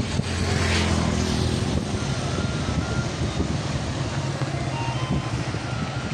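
A motor vehicle's engine running close by, a steady low hum that is loudest in the first second or two, over the rush of floodwater pouring through barrage gates.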